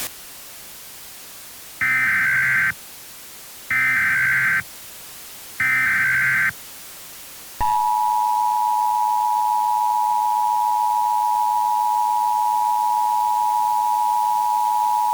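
Emergency Alert System header: three short bursts of SAME digital data, each just under a second and about two seconds apart, then the EAS two-tone attention signal (853 and 960 Hz), which comes in about seven and a half seconds in and holds steady. The sequence announces a blizzard warning.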